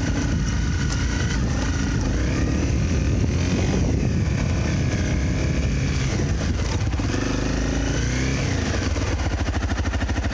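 Honda CRF250L's single-cylinder four-stroke engine running under way, its revs rising and falling a few times with the throttle. Near the end it settles to a slower, evenly pulsing low speed.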